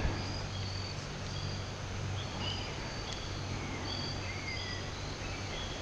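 Steady rushing of a fast-flowing river, with birds calling short whistled notes and falling chirps over it.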